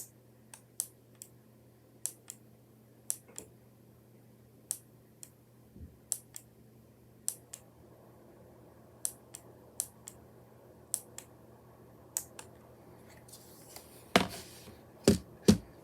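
Keychron K1 low-profile mechanical keyboard with clicky blue switches, keys pressed one at a time at an unhurried pace, each press a sharp click, often in quick pairs. Near the end come three louder, deeper knocks.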